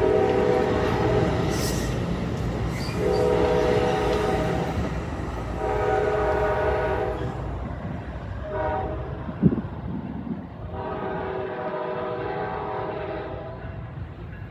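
Passenger train horn sounding the grade-crossing signal, long, long, short, long, over the low rumble of the moving train, with a single sharp thump just after the short blast.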